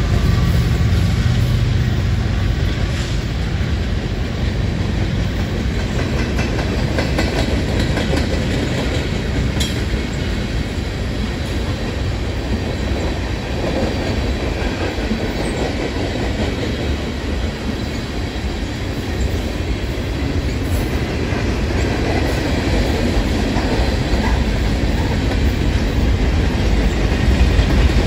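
A long freight train of covered hoppers, boxcars and tank cars rolling steadily past, its wheels clattering over the rail joints in a continuous rumble.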